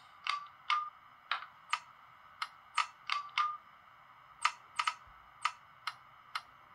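Irregular series of sharp clicks, about sixteen in six seconds, some with a brief ringing tone, played through the small loudspeaker of an H0 ÖBB 4020 model train's ESU LokSound 5 sound decoder: switch and relay clicks of the shutdown sequence.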